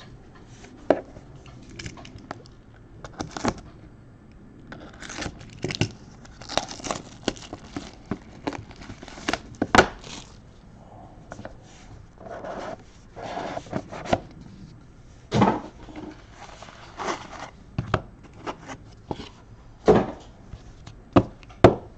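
Trading cards and their plastic sleeves and holders being handled: short, irregular rustles, slides and clicks.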